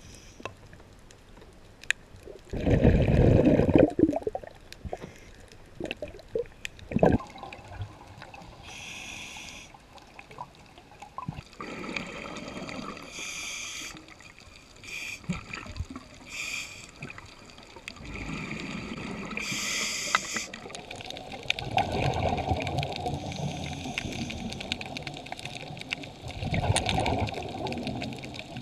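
Scuba diver breathing through a regulator underwater: exhaled air bubbling and gurgling in bursts every few seconds, with a short hiss of inhaled air now and then.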